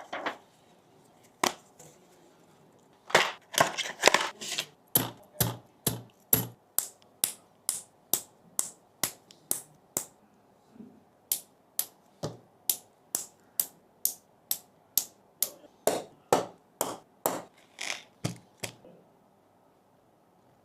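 Sharp clicks at an even pace of about two a second, with a few bunched together early, as parts are pressed one by one into a mechanical keyboard during assembly.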